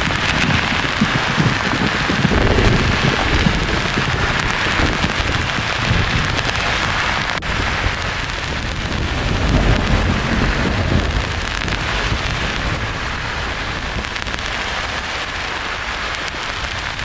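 Steady rain-like white-noise hiss with low rolling thunder under it. The rumble is strongest in the first few seconds, swells again around ten seconds in, then eases toward the end.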